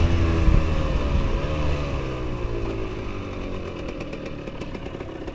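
KTM 125 EXC two-stroke single-cylinder engine through an FMF Powercore 2 silencer, given a short blip of revs about one and a half seconds in, then its pitch sinking slowly as it grows fainter.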